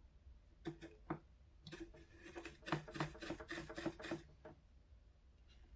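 Soldering iron tip being wiped clean: a run of quick, short rubbing strokes, a few at about one second in, then a dense series from about two to four seconds in.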